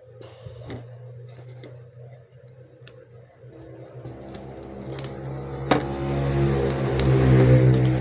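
A steady motor hum that swells louder through the last few seconds, with scattered clicks and rustles of cardboard packaging being handled.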